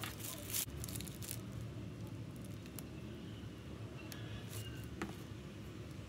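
Light handling noises: parchment paper rustling under the hands and a piping bag being squeezed as buttercream is piped onto a macaron shell, with a few small ticks and taps. A steady low hum lies underneath.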